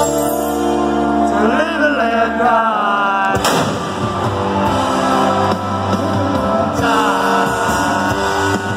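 Live rock band playing in an arena, with a singer. Held chords and sung lines open it, then the full band comes in hard about three and a half seconds in.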